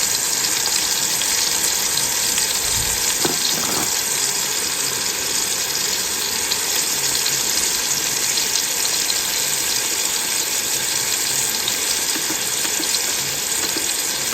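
Chuck roast searing in bacon grease in a Ninja Speedi pot on its sear/sauté setting: a steady, even sizzle.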